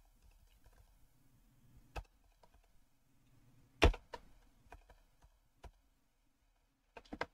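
Slow, scattered keystrokes on a computer keyboard: a click about two seconds in and a louder one just under four seconds in, then a few spaced taps and a quick run of three near the end.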